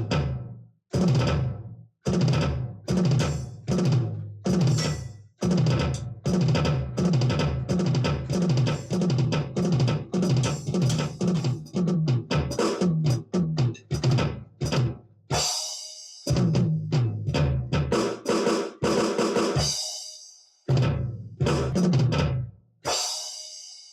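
ddrum electronic drum kit played as a fast drum groove of bass drum and snare hits with rapid fills. It breaks off briefly a few times, and a long ringing crash cymbal comes about two-thirds of the way in and again near the end.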